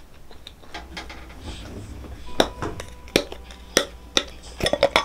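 Utensils and dishes clinking: a few sharp clinks spaced out, the first leaving a brief ringing note, then a quick run of clinks near the end.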